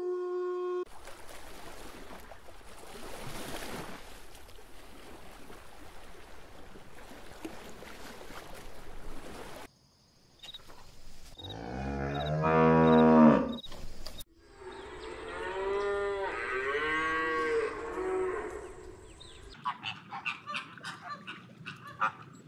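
A cow mooing: one loud, low moo about halfway through, followed by a longer wavering call. Before it comes a long stretch of steady hiss, and short clicks near the end.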